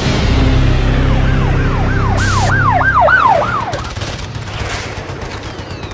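Intro sound effect: a loud rush of static-like noise over a low rumble, with a rapid siren yelp, its pitch rising and falling about three times a second, running from about one to four seconds in. The rush fades away afterwards.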